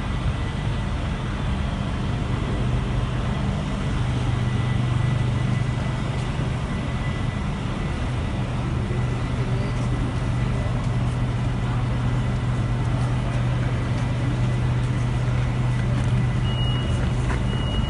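Steady, loud machinery hum with a constant thin high whine, from equipment running beside a stalled train in a railway tunnel. Near the end come a few short high beeps.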